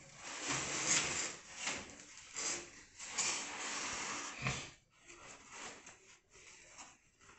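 Cardboard boxes being handled and rubbed against each other in short, irregular bursts of scraping and rustling, fainter in the last couple of seconds.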